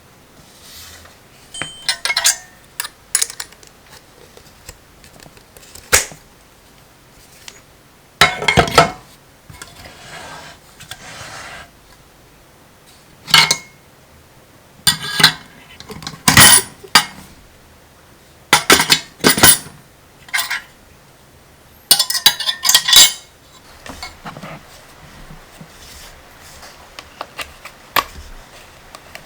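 Hard objects clinking and clattering as they are handled and set down, in irregular clusters of sharp knocks and rattles.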